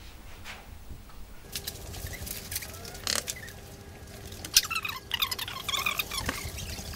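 Scattered knocks and clicks of movement as a wooden door is pushed open, with faint indistinct voices from about halfway through and a steady low hum.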